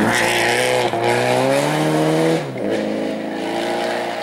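Subaru Impreza WRX STI rally car's turbocharged flat-four engine accelerating past on a snowy stage. The revs climb, drop sharply about two and a half seconds in at a gear change or lift, then the engine pulls on steadily as the car drives away.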